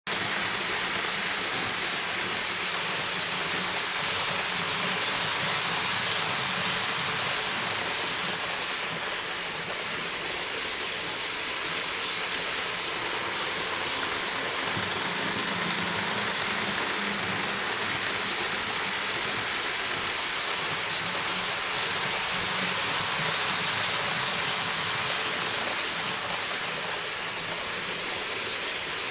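HO-scale model trains running on the layout: a steady hissing rattle of small metal wheels rolling over the track, with the low hum of the locomotive motors underneath.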